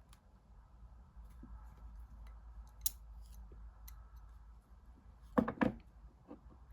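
Small clicks and light metallic taps of a tool working on a model locomotive's chassis, with one sharper click about three seconds in.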